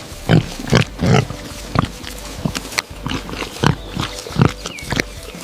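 An animal making a quick run of short, low grunts, several a second and unevenly spaced.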